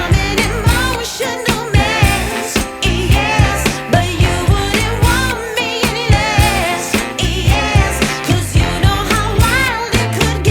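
Background pop music with a sung vocal over a steady beat.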